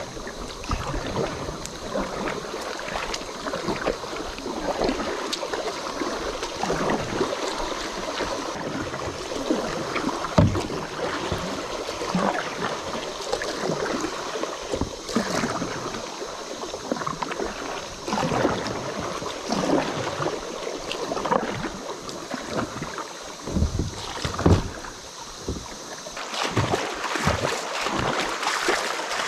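Kayak paddle strokes dipping and splashing in river water, irregular and continuous, over the steady rush of the moving stream. A couple of strokes stand out louder than the rest.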